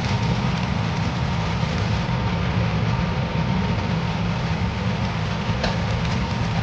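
Chopped green onion sizzling in hot oil in a stainless steel wok as it is stirred, over a steady low rumble.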